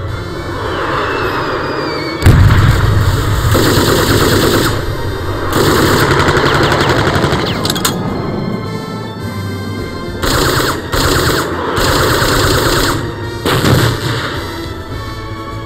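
Heavy machine gun firing in repeated bursts of about a second each, around seven bursts in all, from a tripod-mounted anti-aircraft machine gun fed by an ammunition belt.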